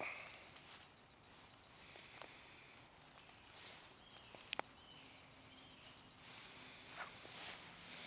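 Faint rustling and crackling of a thin twig being bent and twisted in the hands, with two sharp clicks about halfway through.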